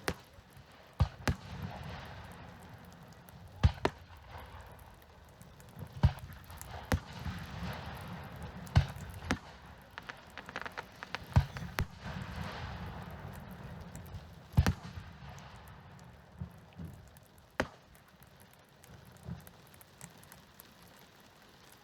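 Fireworks going off: aerial shells bursting in sharp bangs every two to three seconds, with crackling between the bursts and a low rumble under them.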